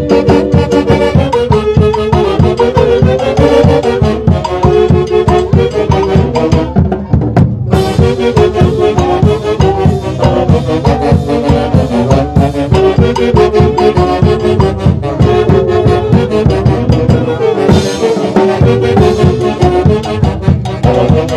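Loud festive dance music from a band with brass over a steady drum beat. It breaks off for a moment about seven and a half seconds in.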